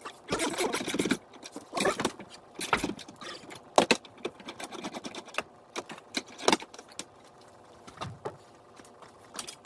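Hand ratchet with a 14 mm socket on an extension loosening windshield wiper arm nuts: short bursts of ratchet clicking and metal clinks as the socket is fitted and lifted off, with a few sharp single knocks.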